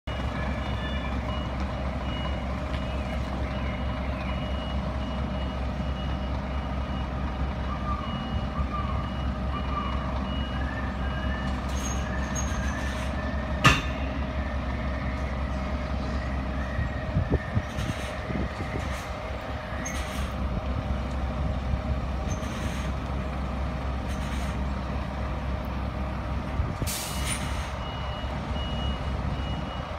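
Scania G410 lorry's diesel engine running steadily while the truck reverses, its reversing alarm beeping regularly for the first ten seconds or so and again near the end. Short bursts of air hiss come through the middle, and a single sharp click just before halfway is the loudest sound.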